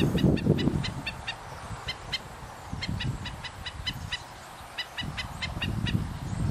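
Black-necked stilt giving its sharp, yapping scolding calls, short notes in quick runs of several at a time with brief pauses, an alarm at an intruder. A low rumble of wind on the microphone runs underneath, strongest near the start.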